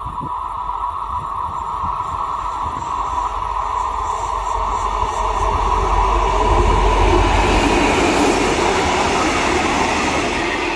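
Freight train with a locomotive hauling tank wagons approaching and passing, its rumble building steadily to a peak about seven seconds in, then easing slightly.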